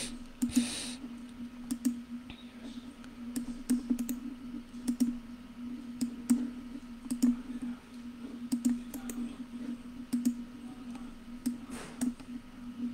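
Scattered clicks from a computer mouse and keyboard at irregular intervals, over a low steady hum.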